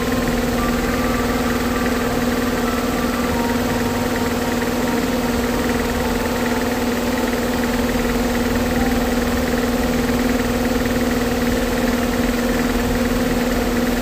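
A motor running steadily with a constant, unchanging hum.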